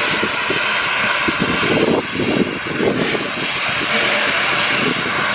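Steam locomotive standing under steam beside the listener, giving a loud, steady hiss and rumble with an uneven, fluctuating low rumble underneath.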